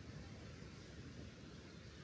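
Quiet outdoor ambience: a faint, uneven low rumble with light hiss and no distinct events.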